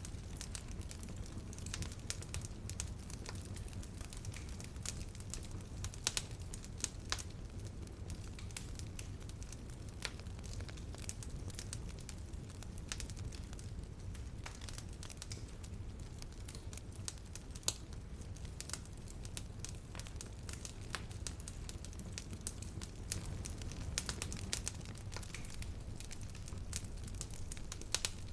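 Wood fire burning in a fireplace, crackling and popping continuously over a low steady rumble of flame.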